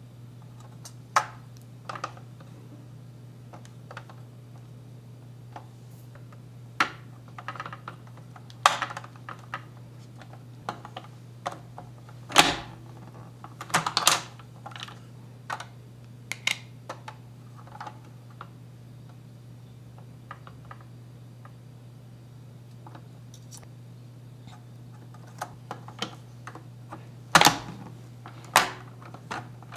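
Irregular plastic clicks, taps and knocks as the parts of a MegaHouse Choco de Coin toy chocolate-coin maker are handled, fitted and pressed together, with louder knocks around the middle and near the end. A steady low hum runs underneath.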